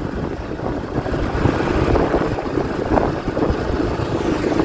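Steady rumble of a vehicle being ridden along a road, with no sudden events.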